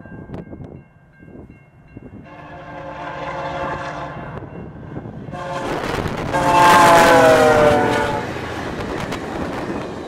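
VIA Rail passenger train's diesel locomotive blowing its air horn twice: one blast about two seconds in, then a longer, louder blast from about five and a half seconds whose pitch drops as the locomotive passes. The passenger cars then run by with a steady rail rumble.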